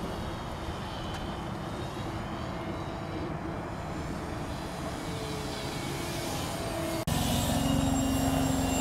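Radio-controlled model airplane's motor and propeller running in flight, a steady drone with a faint held pitch. About seven seconds in it cuts abruptly to a louder, closer drone at a lower pitch.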